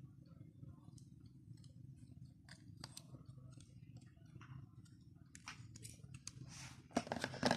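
Small scattered clicks and rubbing as a metal-handled flip-open knuckle knife is handled and its blade folded shut, with a louder quick cluster of clicks and clatter about seven seconds in.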